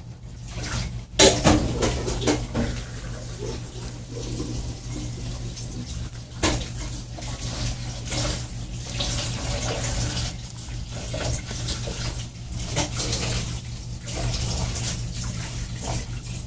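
Dog chewing and licking up broccoli: irregular wet smacking and crunching mouth sounds, with a sharp knock about a second in, over a steady low hum.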